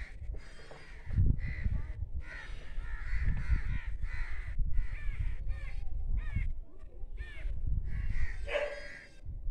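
Crows cawing repeatedly, many short calls one after another, over a low, uneven rumble.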